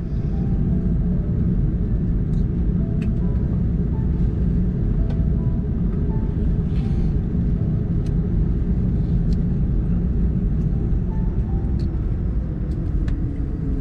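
Steady low cabin rumble inside an Airbus A330-300 at its arrival gate, with faint music and a few light clicks over it.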